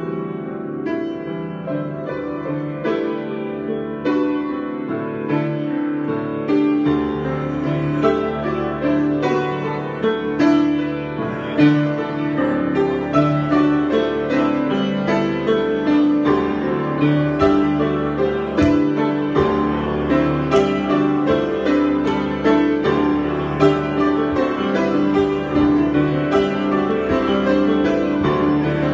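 Solo piano improvisation: a continuous flow of notes over sustained chords, with deeper bass notes joining about seven seconds in.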